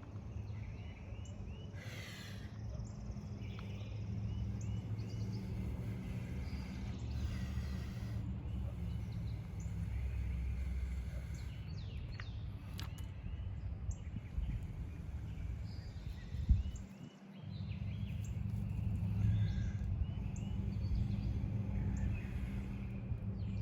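Outdoor ambience: a steady low rumble with birds calling now and then and a few sharp clicks, the loudest about two-thirds of the way through.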